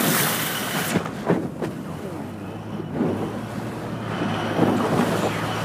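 Motor boat running, with water splashing and rushing past the hull and wind buffeting the microphone. The rush of spray and wind is loudest in the first second, then eases, leaving a steady low engine hum under the splashing.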